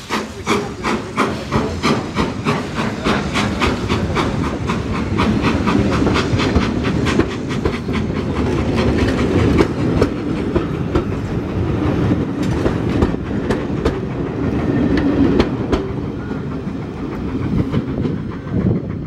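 BR Standard Class 9F 2-10-0 steam locomotive pulling away with a train: sharp exhaust beats that quicken from about three a second, giving way to the rumble and clickety-clack of the coaches rolling past, which eases off a little near the end.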